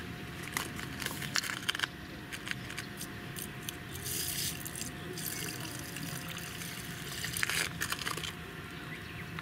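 Water pouring from a soft plastic water bag into a metal mess tin of uncooked rice, adding water to the rice for cooking, with the plastic bag crinkling in the hand. The pouring comes in a few spells through the middle and later part.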